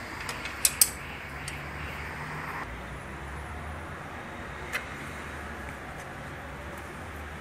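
Sharp clicks and taps from hands and tools working on engine-bay parts: two loud clicks close together about a second in, a fainter tick shortly after, and one more click near the five-second mark, over a steady low hum.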